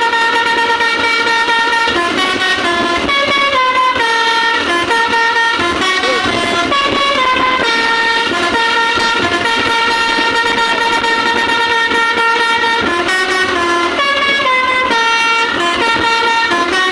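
Basuri telolet horn on a Margo Mulyo bus playing a tune: a continuous run of held, chord-like air-horn notes, stepping to a new pitch every second or two.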